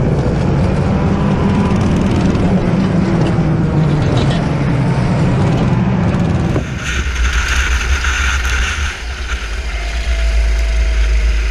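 Go-kart engine and rushing noise picked up by an onboard camera. About six and a half seconds in it cuts abruptly to another kart's onboard recording, with a lower, steadier engine drone and a hiss above it.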